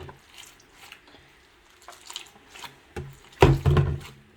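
Homemade borax slime being mixed and squeezed by hand, making scattered short wet clicks and squelches, with a louder, lower squelch about three and a half seconds in as trapped air bubbles are pressed out.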